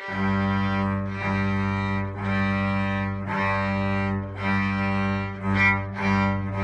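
Cello and violin playing their open G strings together, an octave apart: a run of steady bowed notes on the one pitch, each about a second long, with a short break at every bow change.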